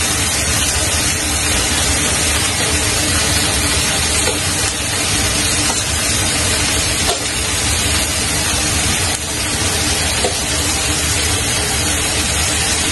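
Food frying in a lidded pan: a steady, loud sizzling hiss, with a few faint clicks of metal tongs against a cooking pot.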